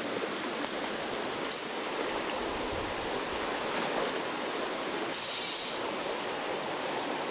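Steady rush of river water. About five seconds in, a brief high-pitched ratchet buzz from a fly reel's click-pawl as line is pulled off it, with a few faint ticks earlier.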